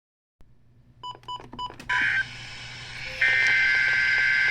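A few short electronic beeps, then the loud screeching two-tone digital data bursts of a NOAA Weather Radio Emergency Alert System (SAME) header: a brief burst about two seconds in, and a longer steady one from about three seconds in. The bursts mark the start of an EAS alert, here a severe thunderstorm watch.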